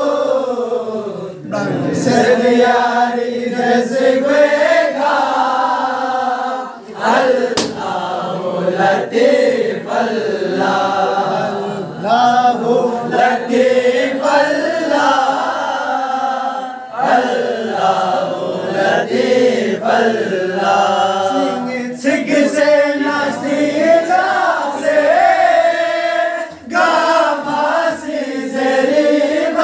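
A group of voices chanting a slow melody together in long held phrases, with brief pauses for breath about every five seconds.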